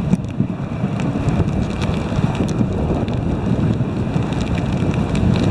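Dog sled gliding along a packed snow trail: a steady rushing of the runners over snow mixed with wind buffeting the microphone, with scattered light clicks.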